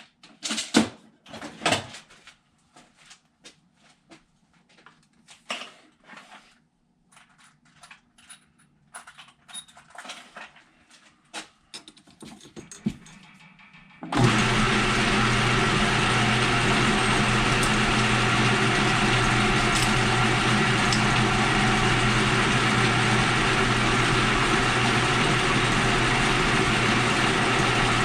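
Scattered clicks and knocks of metal parts and tools being handled and set up. About halfway through, a metal lathe's motor switches on and runs at a steady hum.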